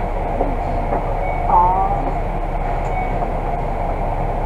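Volvo Super Olympian double-decker bus standing at a stop with its engine idling: a steady low drone. A short wavering higher tone comes about a second and a half in.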